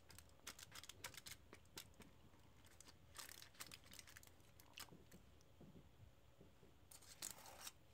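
Near silence with faint, scattered ticks and rustles from fingers pressing a buttered cookie-crumb base flat into a foil-lined pan.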